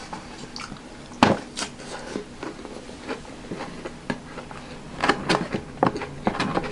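Eating sounds: chewing, with wooden chopsticks clicking and tapping against a foam takeout box. There is one sharp click about a second in and a cluster of clicks near the end.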